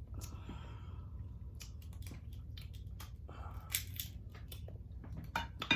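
King crab shell cracking and crunching while being eaten, with chewing, in scattered sharp cracks that are strongest near the end.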